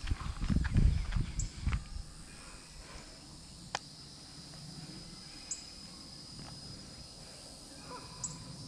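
Insects droning steadily in a thin high buzz, with a few faint ticks and short high chirps. In the first two seconds, low rumbling and thumps of wind or handling on the microphone are the loudest sound.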